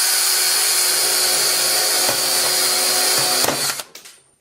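18-volt cordless drill running at full speed with its bit pressed into the middle of an iPhone 6, a steady high whine. There is a knock about two seconds in. The drill stops with a short clatter about three and a half seconds in.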